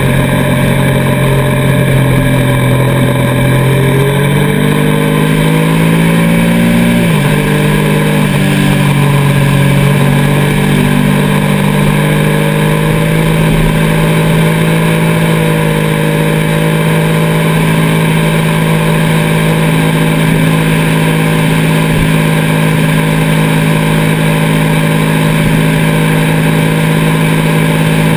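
Engine of the onboard road vehicle at speed, its pitch climbing for several seconds, then dropping sharply about seven seconds in as it shifts gear, then holding steady while cruising, over constant wind and road noise.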